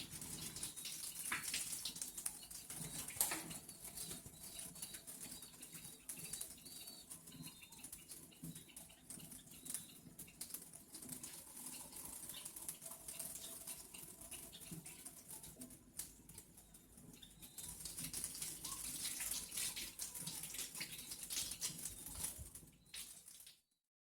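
Rustling with scattered light clicks and knocks, as of medical equipment being handled and tidied away, louder about three seconds in and again near the end.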